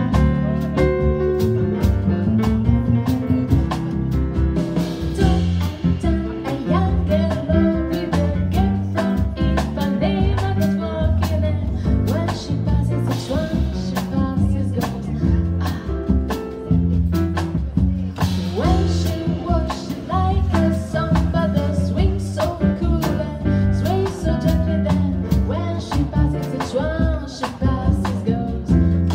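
Live jazz band playing a bossa nova on keyboard, electric guitar and drum kit, with a woman singing into a microphone over it for much of the time.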